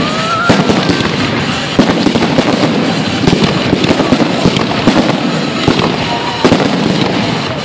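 Fireworks display: aerial shells bursting with repeated sharp bangs, several close together at times, over continuous dense crackling. A short whistle sounds about half a second in.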